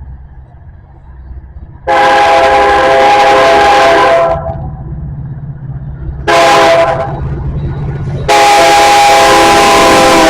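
Multi-tone diesel locomotive air horn sounding a long blast, a short blast, then another long blast, over the low rumble of the train.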